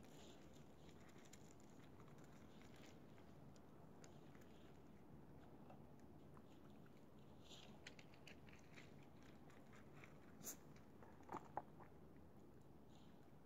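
Near silence, with faint scattered clicks and crunches of handling on the gravel, growing busier in the second half and ending with a few sharper clicks.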